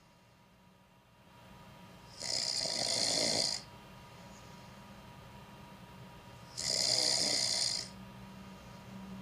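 A man snoring in deep sleep: two loud snores, each a little over a second long, about four and a half seconds apart, with quieter stretches between them.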